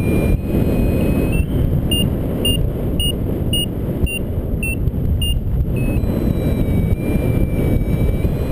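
Airflow rushing over the microphone in paraglider flight, with a variometer's electronic tones: a steady tone at first, then short beeps about two a second from about two seconds in to five and a half, the sign of the glider climbing in lift, then a steady lower tone again that steps slightly in pitch.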